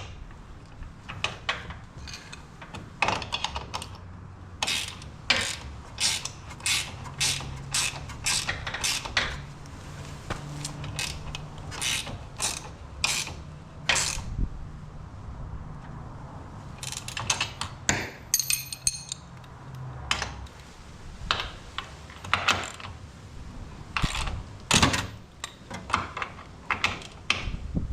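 Socket ratchet wrench clicking stroke after stroke as bolts are tightened, in runs of sharp clicks about one or two a second with a short pause a little past the middle.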